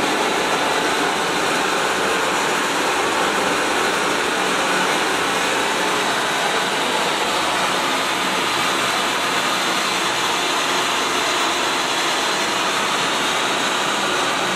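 Cold pyro stage fountain firing, a steady loud hiss as it sprays a column of sparks.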